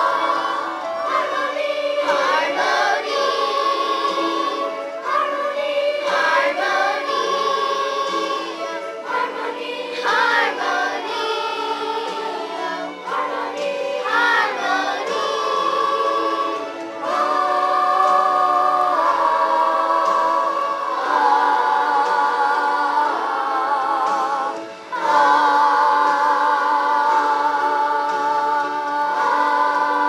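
Children's chorus singing together, moving from note to note with long held, wavering notes near the end.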